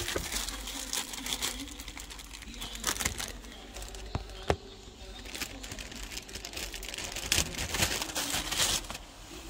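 Clear plastic packaging bag crinkling and rustling as it is handled, with a couple of sharp clicks about halfway through.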